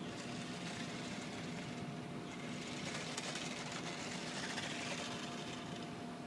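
Small electric motors of toy remote-control cars whirring, swelling and fading as the cars are driven.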